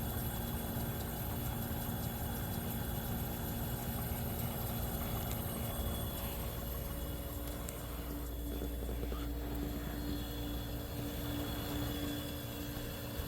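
A 1973 Westinghouse dehumidifier running: steady hum of its compressor and fan motor, with a tone that comes in about halfway through. The owner judges the fan motor to be starting to slow down and in need of oiling.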